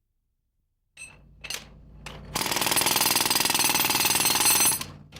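A 90-pound pneumatic jackhammer running in one loud, rapid hammering stretch of about two and a half seconds, then stopping. A second or so of short, fainter noises comes before it.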